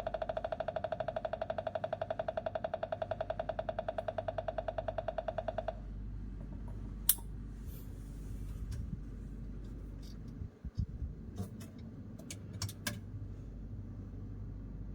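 Electronic fish-attracting sound device sending out a rapidly pulsing buzzy tone, about eight pulses a second, which cuts off about six seconds in. After it come scattered sharp clicks and knocks over a low hum.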